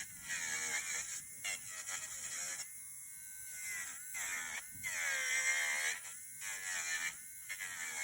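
Electric nail drill whining, its pitch sagging and recovering as the bit is pressed onto the nail to file off old product. The whine breaks off briefly several times.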